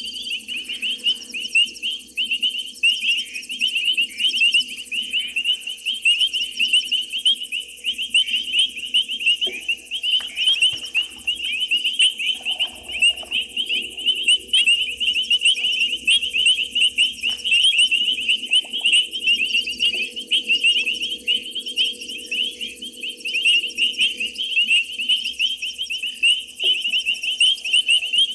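Dense night chorus of insects and frogs: a shrill, unbroken layer of rapid chirping, with a fainter, higher chirping above it.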